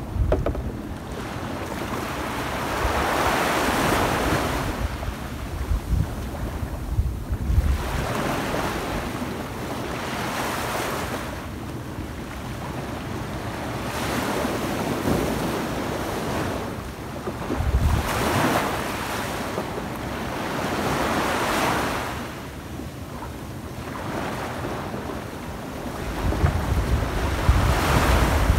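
Small waves breaking and washing up a sand beach, swelling and falling back every few seconds. Gusts of wind rumble on the microphone, strongest near the end.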